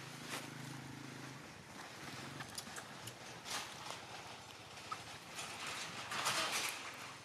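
Rustling and crackling of dry leaves and twigs with scattered sharp clicks, louder around the middle and again near the end, over a faint low hum that fades out about a second and a half in.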